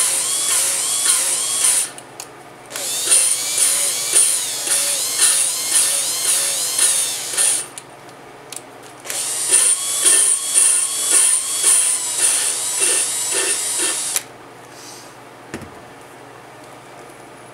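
Cordless drill spinning an LS engine valve against its seat to lap it in with valve lapping compound. It runs in three spells of a few seconds each with short pauses between them, and the motor whine wavers in pitch and pulses under hand pressure. It stops about fourteen seconds in.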